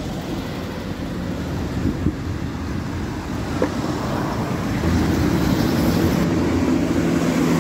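Road traffic going by: engine and tyre noise from passing vehicles with wind on the microphone, growing louder about five seconds in as a heavier engine hum comes in.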